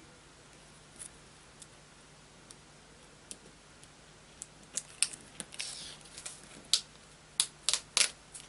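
Ceramic craft knife cutting through Frisket low-tack plastic masking film on a pastel mat. A few faint ticks at first, then from about halfway in a run of sharp, crisp clicks and crackles.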